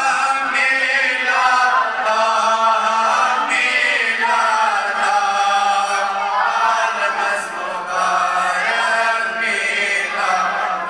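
Men's voices chanting a naat, an Urdu devotional poem in praise of the Prophet Muhammad, in long melodic held lines over a steady low hum.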